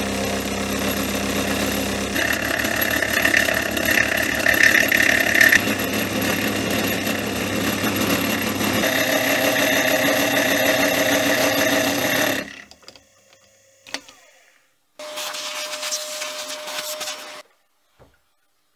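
Benchtop milling machine running, its end mill rough-milling a metal bar clamped in a vise: a steady motor whine under a rough cutting noise that swells and eases. It cuts off suddenly about twelve seconds in; after a few faint clicks the machine motor runs again briefly for a couple of seconds.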